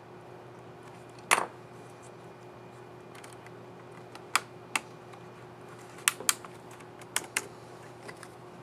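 Sharp clicks of HP 250 G7 laptop keyboard keys being pressed: one loud click about a second in, then about seven more, singly and in quick pairs. This is a reinstalled keycap on its scissor mechanism being snapped down and pressed to test it.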